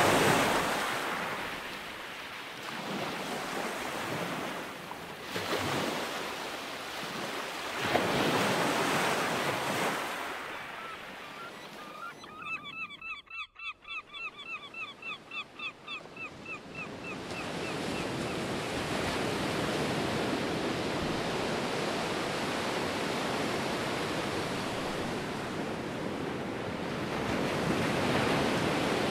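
Ocean surf: waves breaking and washing up the beach in surges, settling into a steadier rushing wash in the second half. Around the middle, a bird calls in a quick run of repeated notes.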